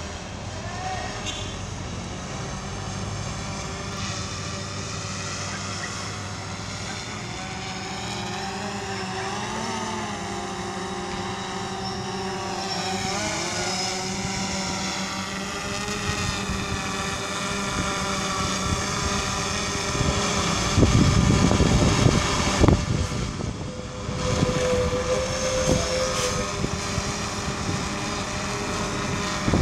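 DJI Phantom 4 quadcopter's propellers whining as it descends to land, the rotor pitch wavering up and down and the sound growing louder as it comes closer. About 20 seconds in, a loud low rumble of rotor downwash buffets the microphone for a couple of seconds.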